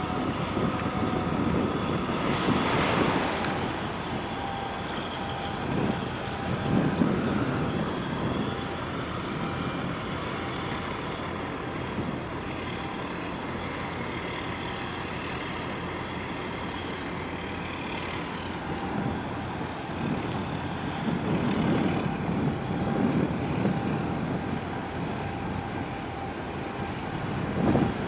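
Steady din of distant engines and port traffic, swelling and easing every few seconds, with a few faint steady tones on top.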